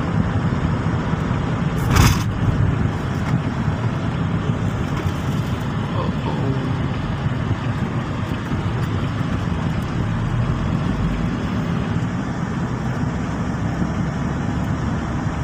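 Steady road and engine noise of a car driving at highway speed, heard from inside the cabin, with a single sharp knock about two seconds in.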